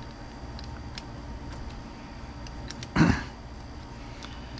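Faint small clicks of a turnbuckle wrench and plastic RC buggy parts being handled by hand over a steady room hum, with one short, louder noise about three seconds in.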